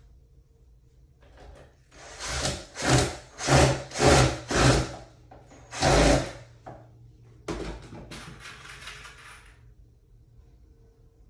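Cordless drill driving a screw into a pine shelf joint in short trigger pulses, about two a second, then a longer run of about two seconds near the end.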